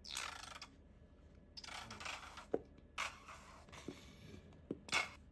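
Plastic squeeze bottle squirting thick okonomiyaki sauce in four short spurts of sputtering hiss, with a few small clicks in between.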